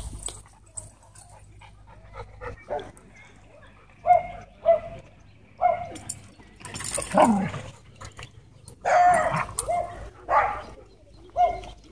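Dogs at play barking and yipping in short, irregular bursts, starting about four seconds in.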